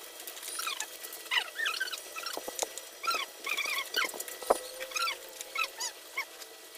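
Many short, high chirping calls from a small animal, rising and falling and scattered throughout, with a few sharp clicks. The loudest click comes about four and a half seconds in.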